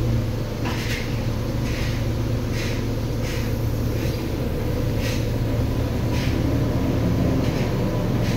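Volvo B7RLE city bus running, a steady low drone from its rear-mounted six-cylinder diesel, with short rattles coming at irregular intervals of about a second.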